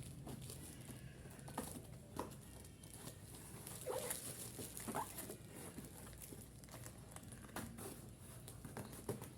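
Faint rustling and crinkling of parcel packaging being handled and opened, with scattered light taps and clicks and a couple of short squeaks near the middle.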